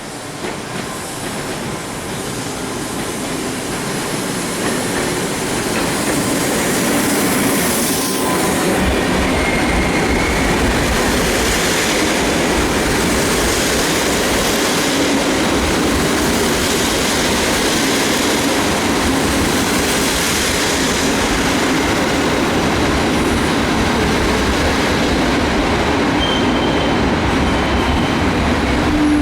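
Intercity passenger train hauled by an EU07A electric locomotive coming in. Its running noise grows louder over the first several seconds and then holds steady, with a few brief high wheel squeals.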